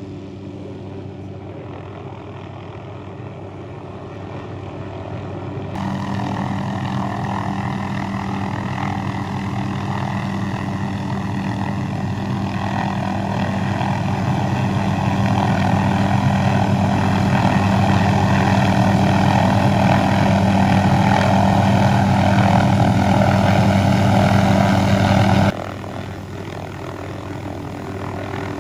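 Hovering light helicopter: a steady drone of rotor and turbine with a constant low pitch. It grows louder about six seconds in and drops off abruptly near the end.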